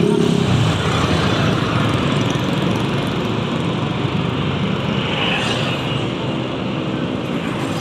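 Steady engine, tyre and wind noise from a vehicle moving along a road among motorcycle traffic.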